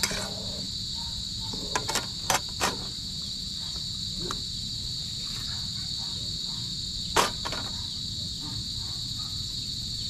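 Steady, high-pitched chorus of insects in the woods, with a few sharp knocks about two seconds in and a single louder knock about seven seconds in.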